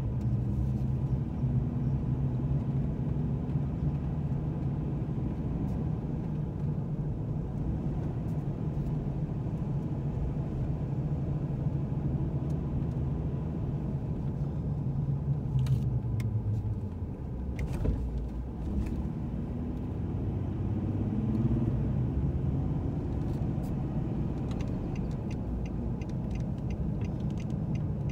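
Car engine and road noise heard from inside the cabin while driving slowly, a steady low hum that dips briefly past the middle. A quick, regular ticking starts near the end.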